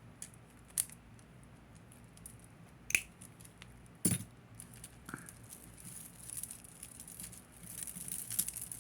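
A few sharp snaps, the loudest about four seconds in, as a strand of plastic Mardi Gras beads is cut, followed by a growing clatter of beads and chain clinking and rattling as they are handled.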